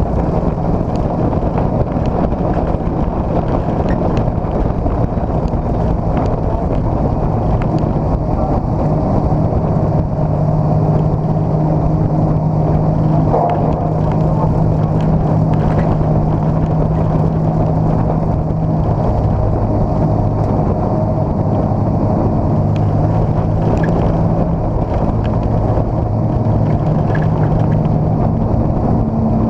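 Dirt-track race car's engine, heard from inside the cockpit, running loud at racing speed, its pitch rising and dropping every several seconds.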